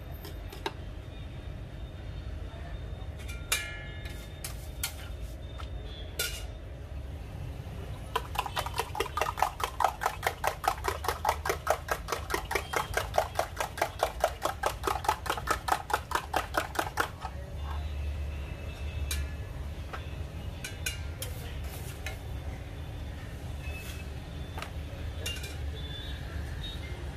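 Rapid metal-on-metal clinking of a cooking utensil, about six strokes a second for roughly nine seconds starting about eight seconds in, with a few scattered clinks before it and a steady low rumble of traffic underneath.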